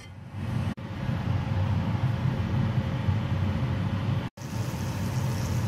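A steady low hum, with no clear events in it. It cuts out briefly twice: about three quarters of a second in, and again about four seconds in.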